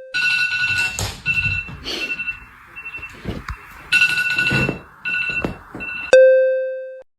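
Bell-like chime and ringing tones: a ding that rings out and fades, then high ringing tones that start and stop in broken stretches over a hiss, and a second ding about six seconds in that fades away.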